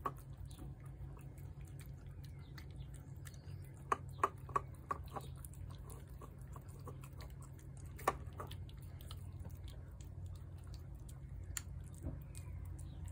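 Cats eating shredded chicken: small wet chewing and smacking clicks, with a quick run of louder ones about four seconds in and another about eight seconds in. A steady low hum runs underneath.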